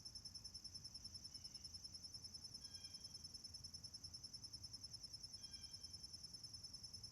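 Woodland ambience, faint: insects chirring in a steady, rapid high-pitched pulse, with a few short bird calls, clearest about three seconds in and again near six seconds, over a low distant rumble.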